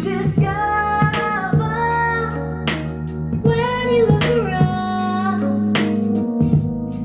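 Recorded song playing: a singer holding long, wavering notes over a band accompaniment, with occasional sharp drum hits.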